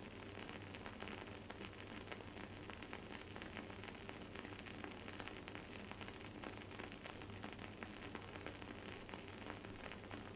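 Wooden candle wick burning with a faint, steady crackle: many small, irregular pops, several every second.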